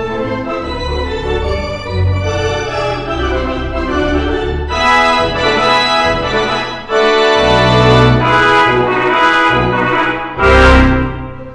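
Instrumental background music with organ and brass. It gets louder about seven seconds in, with a few sharp accents near the end.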